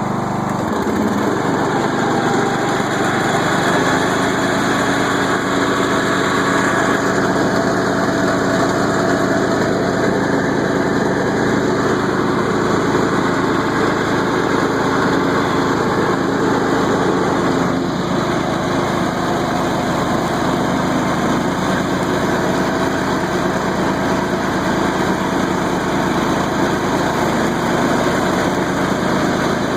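Rebuilt Troy-Bilt riding lawn mower engine running steadily as the mower is driven, with an even, smooth-running engine note.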